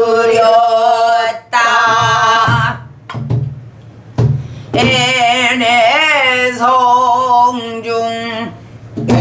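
A woman sings pansori in long, wavering, ornamented phrases, with a pause about three to four seconds in. She accompanies herself with a few low strokes on a buk barrel drum.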